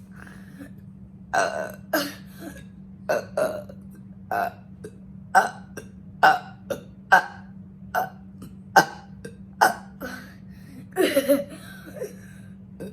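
A person burping on command over and over as fast as they can. The burps are short and come about one a second, with a longer, drawn-out burp near the end.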